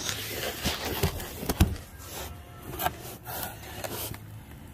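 Hands handling small fittings and parts: rubbing and rustling with several light knocks, the loudest about one and a half seconds in.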